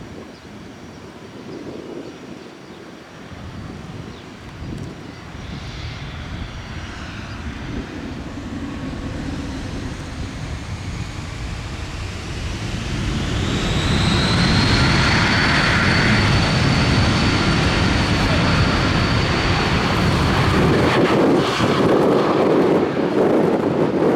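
Twin turbofan engines of a Cessna Citation CJ2+ spooling up for takeoff: a whine rising in pitch, settling about halfway through into a steady high whine over a roar that grows loud and holds.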